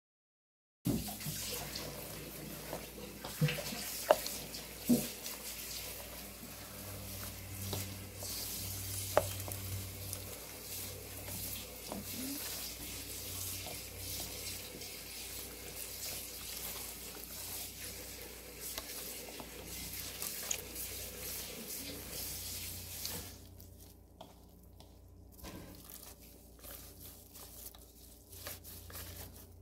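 Hard-boiled eggs rubbed against a metal box grater: a continuous rasping scrape with a few sharp knocks. It becomes quieter and more broken in the last several seconds.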